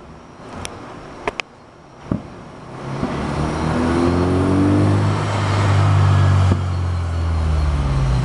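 A car drives by close, its low engine hum building from about three seconds in and holding loud before easing off near the end. A few sharp clicks come in the first two seconds.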